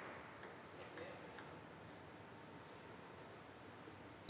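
Quiet hall ambience with a few faint scattered ticks while the players wait between points. It ends with a sudden sharp knock of the table tennis ball as the serve is struck.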